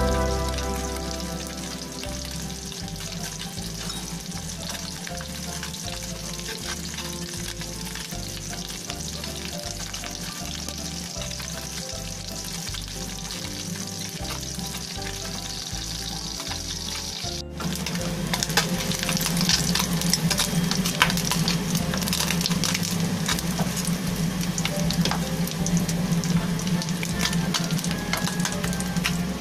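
Small whole fish sizzling and crackling as they fry in hot oil in a nonstick wok. The sizzle gets louder and denser about 17 seconds in.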